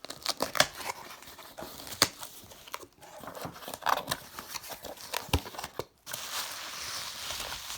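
A parcel being unpacked by hand: packing material and cardboard rustling and crinkling, with scattered clicks and knocks, and steadier rustling in the last couple of seconds.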